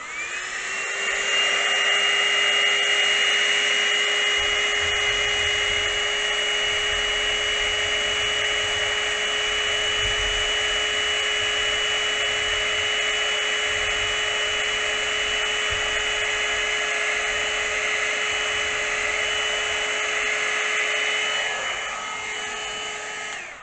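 Small handheld electric blower switching on and spinning up to a steady motor whine over a rush of air, blowing wet acrylic pour paint outward across a tile. It drops slightly in level shortly before the end, then is switched off and winds down.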